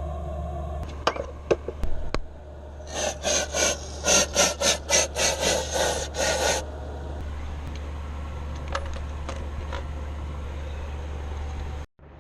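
Rapid back-and-forth hand scraping strokes, about a dozen in three and a half seconds, after a few sharp clicks, over a steady low hum that cuts off near the end.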